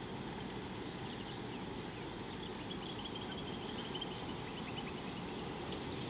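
Steady low wind rumble on the microphone, with a bird chirping: a run of short high notes from about a second in until about halfway through.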